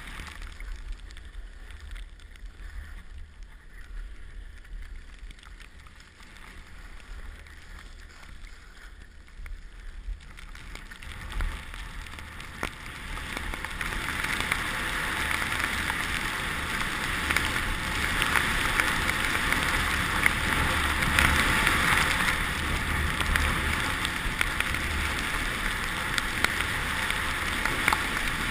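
Wind buffeting the microphone, with a steady rushing noise that grows louder about halfway through and stays up.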